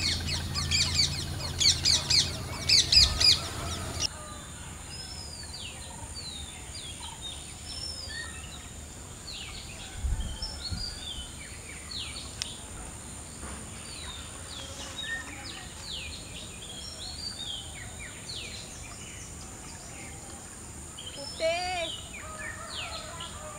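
Wild birds chirping and calling, mostly short falling whistled notes one after another, with a brief warbling call near the end. The first four seconds hold a louder, denser stretch of calls over a low hum, which cuts off suddenly.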